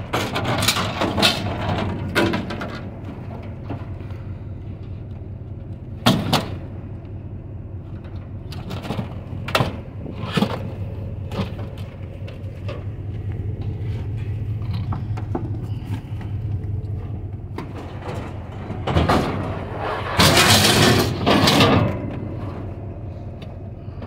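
Stainless steel scrap being shifted around a pickup truck bed: scattered metal knocks and clanks, then a longer, loud scraping clatter of metal dragged across metal near the end. A steady low hum runs underneath.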